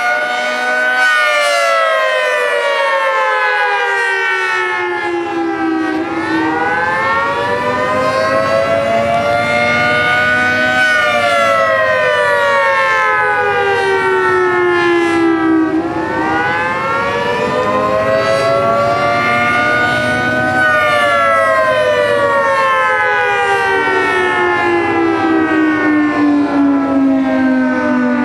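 Federal Signal 3T22 three-tone civil defense siren sounding the attack signal: its chord rises and falls in a slow wail, peaking about every ten seconds.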